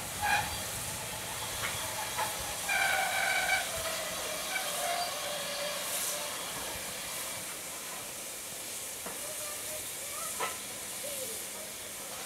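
Steam locomotive 53809, an S&DJR 7F 2-8-0, hissing steadily with escaping steam, with a few brief high-pitched squeals about three seconds in.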